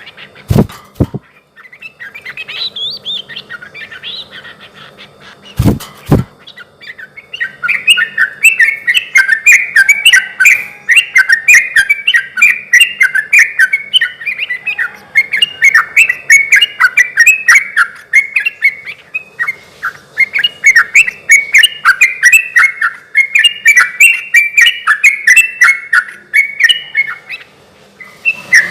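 Yellow-vented bulbul (trucukan) singing long chattering runs of quick, bubbly notes, with a short break about two-thirds of the way through. Two brief knocks sound, one near the start and one about six seconds in.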